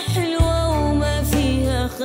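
A boy sings a line of a tender Arabic song over a musical backing, with a deep bass note held under most of it.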